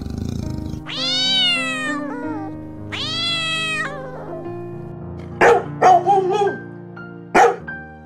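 A domestic cat meowing twice, two long calls that rise and then fall, then four short, sharp animal calls near the end, over background music.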